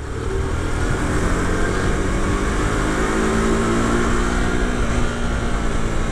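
125 cc motorcycle running hard at high revs while under way, its engine note steady under a loud rush of wind.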